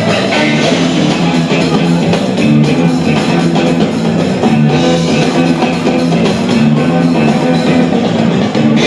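Loud music with a steady beat, guitar and drum kit, in a rock style.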